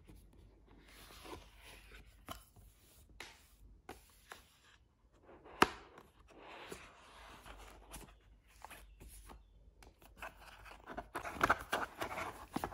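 Packaging handled and opened by hand during an unboxing: irregular rustling, scraping and tearing, with a sharp click about halfway through and a denser run of crinkling and clicks near the end.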